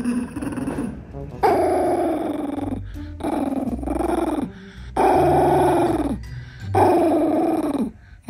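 Pomeranian growling in four long drawn-out grumbles in a row, each about a second long and dipping in pitch at the end.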